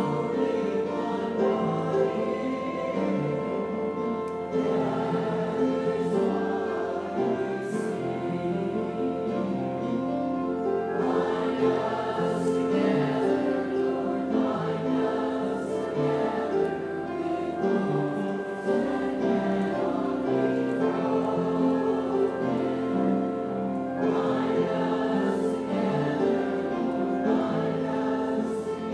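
A church congregation singing a hymn together, in long held notes over a steady low accompaniment.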